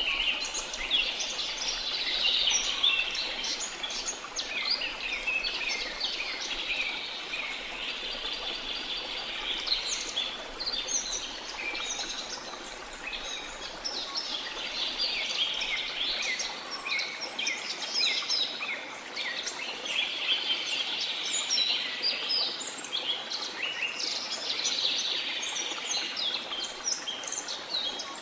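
A dense chorus of tropical rainforest birds chirping and calling over one another without a break, over a faint steady hiss.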